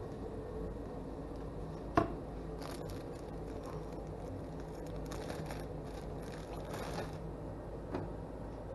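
A sharp knock about two seconds in, then a plastic zip-top freezer bag crinkling in stretches as hands pull its seal open, over a steady background hum.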